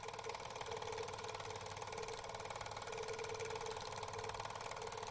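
Steady mechanical whirring with a rapid, even clicking running through it, held at an even level.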